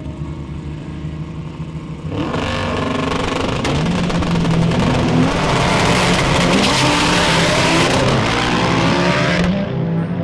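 A drag race car launching and accelerating hard, loud, with its engine note rising. It starts suddenly about two seconds in, over music, and cuts off abruptly near the end.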